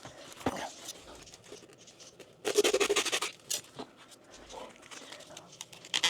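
Handling noise while working on pipe lines: a loud, scratchy rustle lasting under a second about two and a half seconds in, with a few light knocks and scuffs around it.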